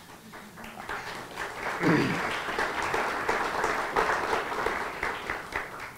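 Audience applauding: scattered claps that build within about two seconds into full, dense applause.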